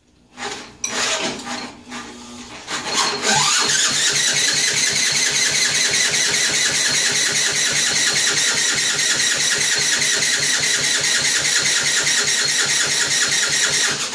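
Electric drill cranking a 1959 Mitsubishi Silver Pigeon scooter's 125cc four-stroke engine. A few short stop-start blips come first. About three seconds in the drill spins up with a rising whine, then turns the engine over steadily for about ten seconds with a fast, even pulsing. The engine does not fire.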